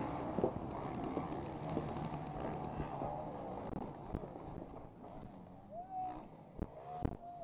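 Paintball markers firing on the field: strings of rapid pops, with a few sharp knocks and several short high calls near the end.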